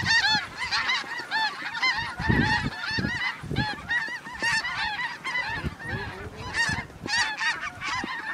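A flock of snow geese honking, many short high calls overlapping without a break, with low rumbles of wind on the microphone now and then.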